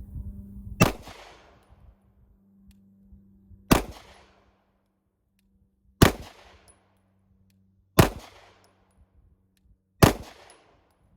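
Five single shots from a Walther PDP F Series 9mm pistol, fired at a slow, steady pace about two to three seconds apart, each followed by a brief fading echo: a five-shot group of slow aimed fire.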